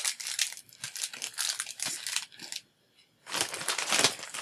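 Plastic packaging crinkling and crackling as it is handled. It stops for a moment a little past the middle, then starts again louder.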